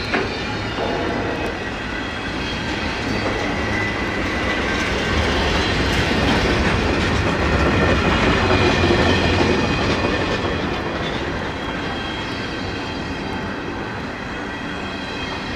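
Double-stack intermodal well cars of a slow freight train rolling past, steel wheels clicking over rail joints under a steady rumble, with thin high wheel squeal in the background. A little louder in the middle.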